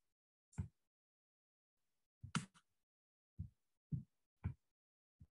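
Near silence on a noise-gated video-call microphone, broken by about six brief, soft thumps and clicks.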